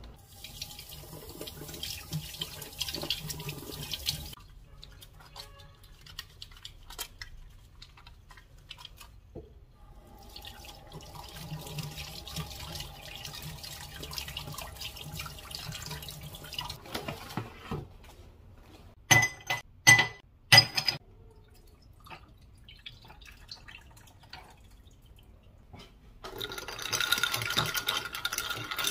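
Water from a kitchen tap running into a stainless steel sink as things are washed, starting and stopping. A few sharp clinks come about twenty seconds in, and near the end a drink is stirred in a glass.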